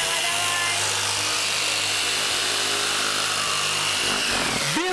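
Electric jigsaw running steadily as it cuts through a sheet of expanded polystyrene foam, with a high motor whine. The motor winds down with a falling pitch near the end as the trigger is released.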